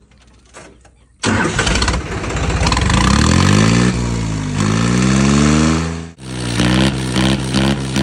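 New Holland 3630 tractor's three-cylinder diesel engine, running through a perforated mesh ('jaali') silencer. It starts about a second in and is revved twice, the pitch rising, dropping and rising again. It then settles to a steady, pulsing idle near the end.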